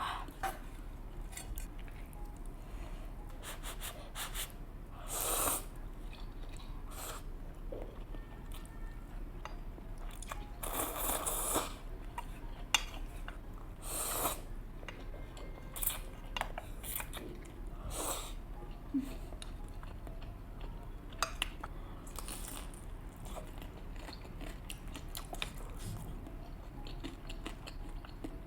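Close-miked eating sounds: noodles slurped in several longer bursts, chewing and biting, and occasional light clicks of utensils against the bowl.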